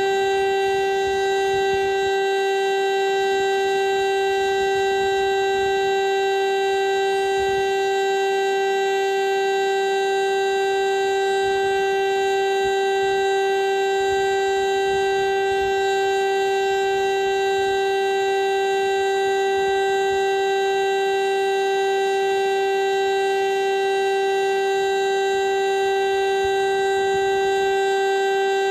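VEM DS977 mechanical civil-defence siren, an East German rotor siren, sounding a single steady, unwavering tone at full speed: the continuous-tone 'Sirenentest' signal of the monthly siren test.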